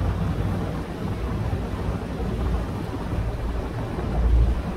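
Water taxi's engine running steadily under way, a low hum, with wind buffeting the microphone and water rushing along the hull; a stronger gust of wind rumble comes about four seconds in.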